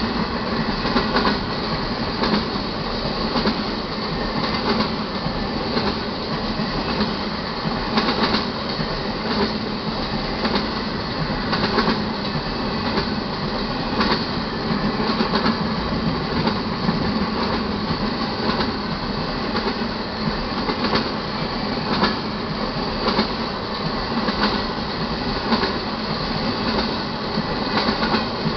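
Empty freight flatcars rolling past at a grade crossing: a steady rumble of steel wheels on rail, broken by frequent sharp clacks as the wheels hit the rail joints and crossing.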